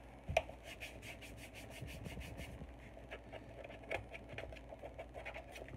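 Acetone-dampened tissue rubbing on a clear plastic tool case in quick, even strokes, with a light knock of plastic on the bench about a third of a second in and another near four seconds.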